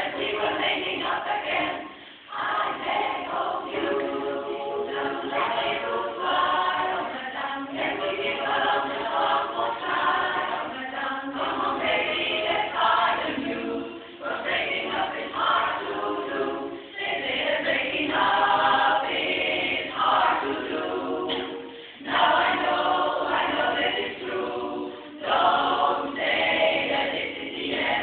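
Women's barbershop chorus singing a cappella in close harmony, the phrases broken by short breath pauses about 2, 14, 22 and 25 seconds in.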